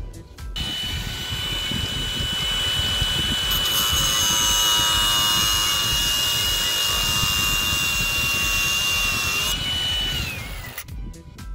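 Milwaukee cordless angle grinder grinding the end of a grease gun's steel barrel: a steady high whine over a grinding hiss. It starts about half a second in and spins down near the end, the whine falling in pitch.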